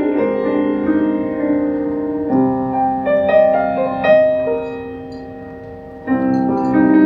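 Piano playing an instrumental passage between sung lines of a song: held chords, then a short run of notes, dying down before a new chord about six seconds in.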